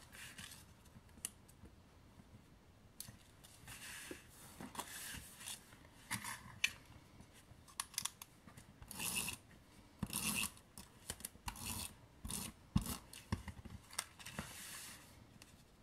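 Tape runner drawn across card stock in short rasping swipes, with paper being rubbed and pressed down by hand to stick it, and a few light taps.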